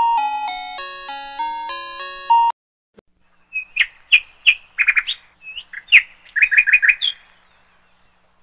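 A short electronic intro tune of stepping notes that stops about two and a half seconds in. After a brief pause, a run of short, sharp bird chirps in quick clusters lasts about four seconds.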